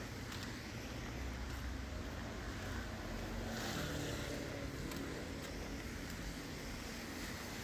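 Steady rain falling, with a low rumble underneath. About halfway through, a faint hum swells and fades.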